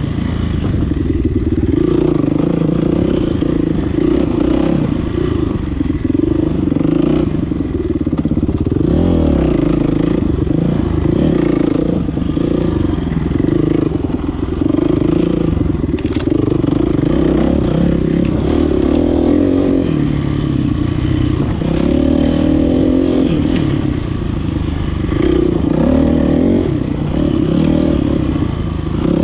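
2018 Kawasaki KX450F's single-cylinder four-stroke engine running on a trail ride, its revs rising and falling constantly as the throttle is worked.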